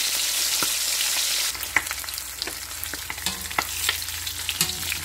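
Indian mackerel (hasa-hasa) shallow-frying in canola oil in a wok. A steady hiss of sizzling turns, about a second and a half in, into a sparser crackle with many sharp pops and clicks as metal tongs turn the nearly done fish.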